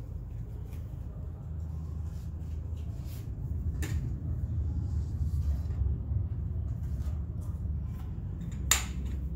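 Metal spoons scraping and tapping against metal pots, with two sharp clinks, one about four seconds in and one near the end, over a steady low hum.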